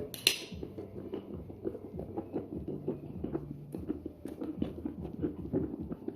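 Dishes and cutlery being handled while washing up: a sharp clank right at the start, then steady small clinks and clatters of plates and utensils knocking together.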